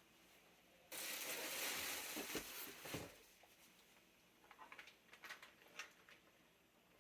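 Packaging being handled while a PC case is unboxed: a sudden rustle of about two seconds with a couple of soft thumps, then scattered light clicks and taps.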